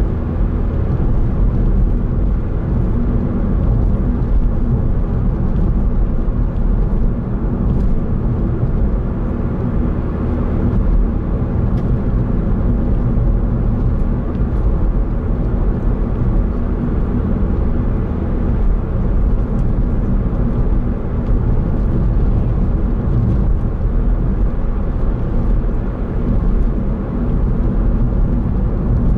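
Steady road noise heard inside the cabin of a car cruising at an even speed: tyre and engine noise, low and unchanging.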